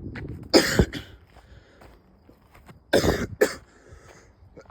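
A man coughing in two harsh bouts, one about half a second in and another about three seconds in, each of a couple of quick coughs. He is winded and sore-throated from climbing a steep hill.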